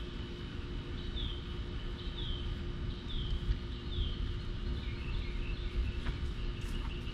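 A bird calling over and over, a short down-slurred chirp about once a second, with a few lower chirps near the end, over a steady low rumble.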